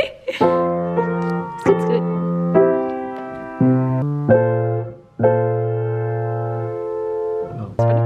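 Grand piano played in slow block chords, each struck and left to ring, with a short break about five seconds in before one long held chord.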